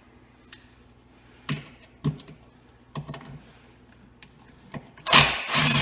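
Light clicks and taps of hands and a screwdriver working a screw in a cabinet door handle, then a louder scrape with a falling squeak near the end.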